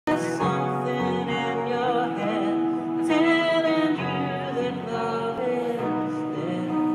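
A live band playing a song through a stage PA, acoustic guitar among the instruments, with held pitched notes that change every second or so at a steady level.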